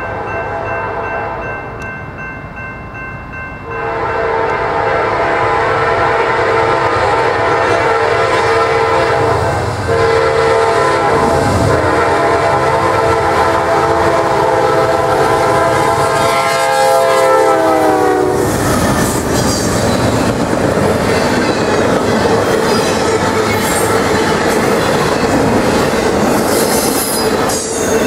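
Norfolk Southern freight train's lead GE C40-9W locomotive approaching and sounding its air horn, the horn's pitch dropping sharply as the locomotive passes, a bit before two-thirds of the way in. Then the steel wheels of the passing autorack cars roll by in a steady loud rumble.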